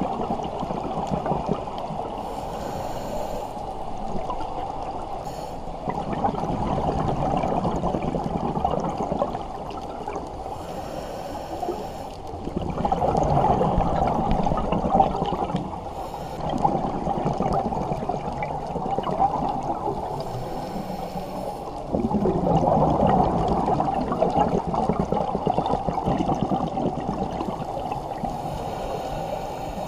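Scuba diver breathing through a regulator underwater: a short hiss of inhaled air about every eight to nine seconds, with exhaled bubbles gurgling out in longer bursts between breaths.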